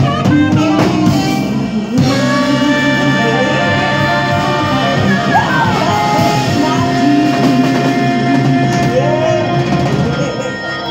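Live blues band with electric guitar, bass guitar, drums and saxophone playing out the end of a song, settling into a long held final chord about two seconds in.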